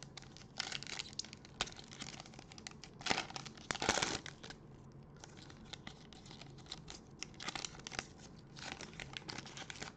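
A foil trading-card pack crinkling and tearing as gloved hands rip it open: many short crackles, loudest about four seconds in.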